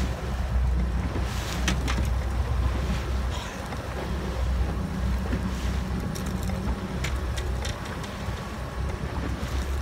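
Small boat's engine running steadily at slow trolling speed, a low rumble with wind buffeting the microphone and water washing past the hull. A few short, sharp clicks from handling the caught fish stand out over it.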